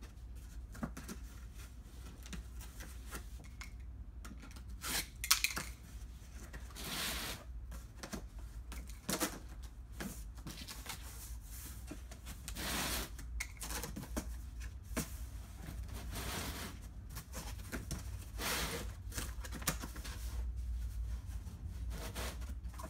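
Corrugated cardboard handled, bent and folded around a lampshade: irregular rustles, crinkles and scrapes of the board, over a steady low hum.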